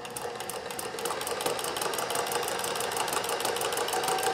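Kenmore sewing machine with a Singer zigzagger attachment sewing a wide multi-point zigzag at maximum width. It starts up and gathers speed, giving a fast, even rhythm of needle strokes over the steady whine of the motor.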